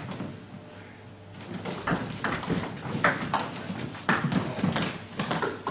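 Table tennis rally: the ball clicking sharply off the bats and the table, often in quick bat-and-bounce pairs, starting about two seconds in.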